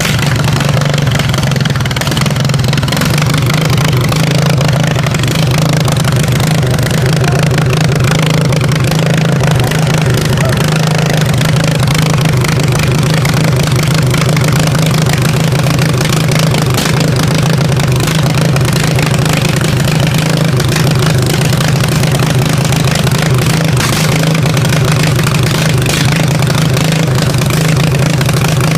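Riding lawnmower engine running at a steady speed, close and loud, with no change in pitch.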